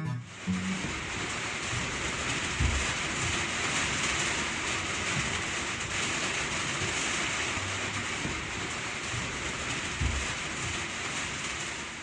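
Steady rushing noise with no music, with two low thuds about three seconds and ten seconds in, slowly fading near the end.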